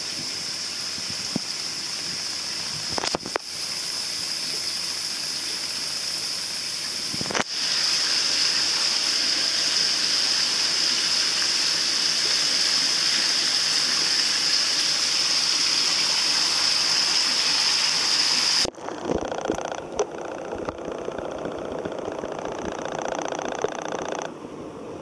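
Steady rush of running water at a koi pond. It gets louder about seven seconds in and drops suddenly at about nineteen seconds to a quieter splashing.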